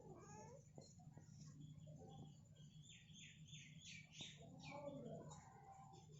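Faint, high-pitched kitten mews: a quick run of short cries around the middle, with a few softer, lower cat calls near the start and again about five seconds in. A steady low hum runs underneath.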